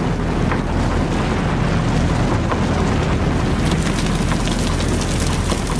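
Documentary sound effect of rock and earth rumbling for colliding continental plates: a dense, steady rumble with scattered crackles and a low drone underneath.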